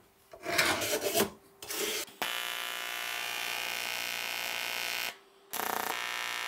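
A few short rubbing and scraping noises of metal plates being handled. Then an AC TIG welding arc on aluminium comes on suddenly and buzzes steadily. About five seconds in it breaks off for a moment and starts again.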